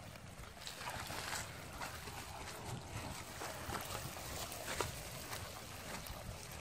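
Wet slaps, clicks and rustles from a wicker basket of freshly caught small puti (punti barb) fish being handled and stirred by hand. The short sharp sounds come irregularly over a steady low rumble, with the sharpest slap a little under five seconds in.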